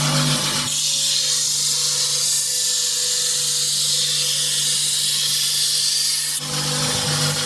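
Workshop machinery: a steady motor hum that cuts out abruptly about a second in and gives way to a steady high hiss lasting about six seconds, after which the hum comes back suddenly.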